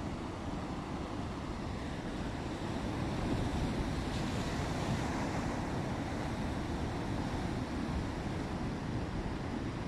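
Rough sea: waves surging and breaking in a steady wash of noise with wind on the microphone, swelling louder a few seconds in.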